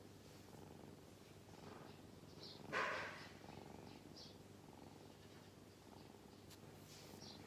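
A brown tabby-and-white kitten purring steadily and softly, close to the microphone. A brief louder rustling noise cuts in about three seconds in.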